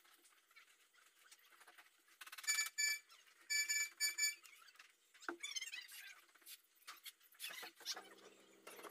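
Soft rustling and crackling of water spinach (kangkong) leaves and stems being picked apart by hand. A run of shrill, high beeps in two clusters between about two and four seconds in is the loudest sound, with a few high chirps later.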